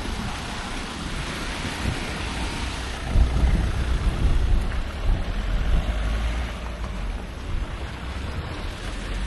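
Outdoor street ambience in snow: a steady rushing noise, with a low rumble of wind on the microphone that grows heavier about three seconds in.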